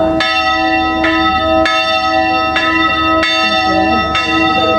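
A newly cast Grassmayr church bell swinging full circle and ringing alone, its clapper striking about every three-quarters of a second, each strike over the hum of the last.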